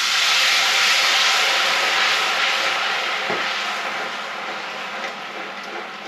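Red wine poured into a hot wok of browned garlic, onions, butter and oil, hissing and sizzling loudly as it deglazes the pan. The hiss fades slowly.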